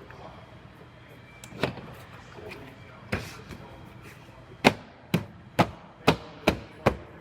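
A series of sharp knocks: two single ones spaced well apart, then six in quick succession, about two a second, in the second half.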